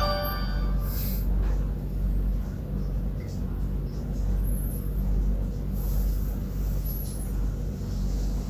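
The last notes of the Huawei Nova 7 SE's startup chime end about half a second in. After that, a steady low hum of room background noise carries on.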